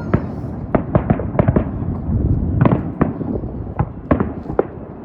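Fireworks going off in quick, irregular succession: a string of sharp bangs and crackles, several a second, over a continuous low rumble.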